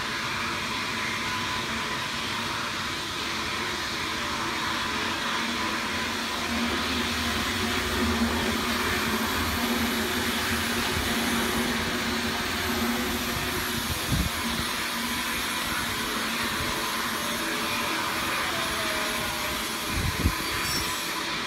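Steady running noise of a jacketed cooking kettle's motor-driven stirrer turning inside the stainless steel pot, with a few short knocks in the second half.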